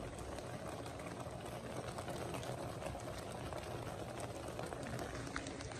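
Brown sugar syrup with hawthorn fruits bubbling in a wok as it reduces: a steady simmer with many small crackling pops.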